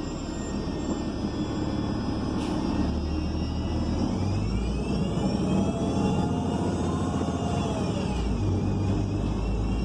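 Interior of a 2021 ENC Axess bus under way: its Cummins Westport L9N natural-gas engine and Voith D864.6 automatic drivetrain running with a steady rumble. A high drivetrain whine rises about four seconds in, holds, and falls away near the end as the bus changes speed.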